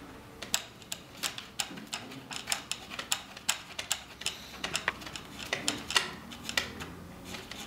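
Small screwdriver tightening metric screws into a plastic wing retainer on a foam fuselage: a string of light, irregular clicks and ticks, a few a second.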